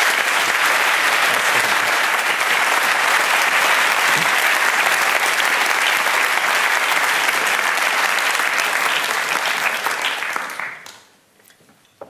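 A large audience applauding steadily, dying away about a second before the end.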